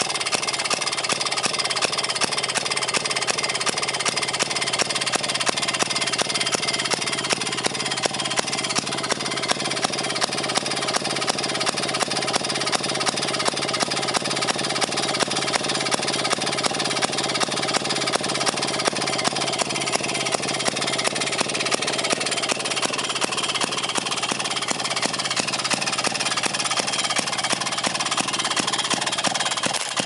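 1934 Maytag Model 92 Multimotor single-cylinder two-stroke engine running steadily with an even, fast firing beat. It is running a little too fast because its governor still needs adjusting.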